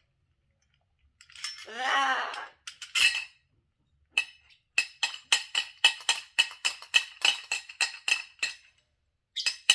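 A short pitched vocal sound about a second in, then a quick, even run of sharp ringing clinks, about four a second, from a small hard object being knocked repeatedly, starting again near the end.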